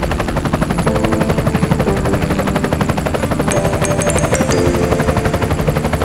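Background electronic music with a fast, even pulse of ticks under a melody that steps from note to note.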